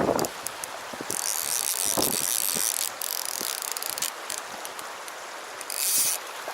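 Fly reel's click-and-pawl drag buzzing as line runs through it, a long stretch about a second in and a short one near the end, with scattered clicks in between.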